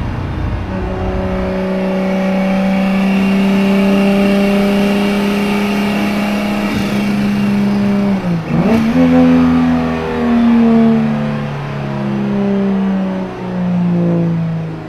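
A car engine running loudly at fairly steady revs, its pitch dipping sharply and coming back about eight and a half seconds in, then changing in steps roughly once a second.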